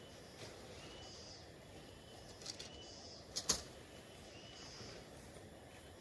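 Outdoor forest ambience: a steady low hiss with a short animal call repeating about every two seconds, and a few sharp clicks, the loudest about three and a half seconds in.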